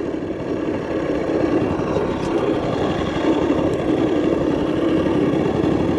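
Small outboard motor running steadily at low trolling speed.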